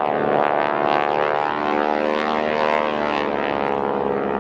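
Radial engines of two Boeing Stearman biplanes running steadily as the pair flies past together. The pitch drifts slightly up and down as they move.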